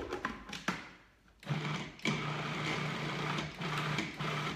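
Countertop food processor: two plastic clicks as the lid is fitted, then about one and a half seconds in the motor starts and runs steadily, puréeing a thick avocado chocolate pudding mixture.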